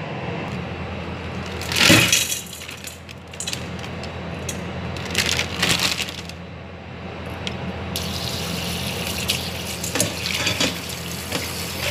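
Tap water running into a stainless steel bowl over a block of dried palabok noodles to soak them, the steady gush starting about two-thirds of the way in. Before it there are a few short clatters and rustles of handling, all over a steady low hum.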